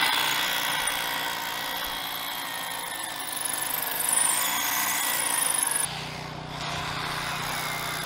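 Steady machinery noise from the construction site, changing about six seconds in to a lower, steadier hum.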